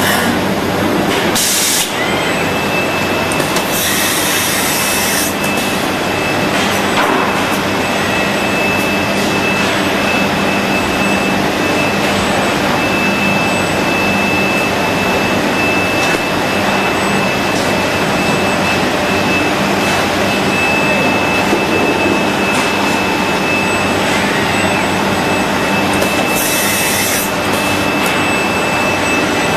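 Steady machine noise of a six-axis robot cell cutting and finishing a plastic car dashboard, with a low hum and a high, even whine that sets in about two seconds in. Short hissing bursts come near the start, around four seconds in, and again near the end.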